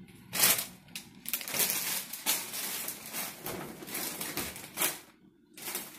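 Plastic bag of frozen fries crinkling and rustling as it is handled and folded, a run of irregular crackles that pauses about five seconds in.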